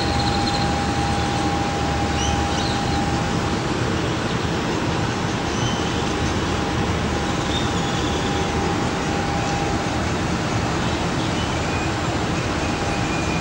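Steady rushing background noise with a faint, steady high whine running through it. The transformer flashes make no audible bangs.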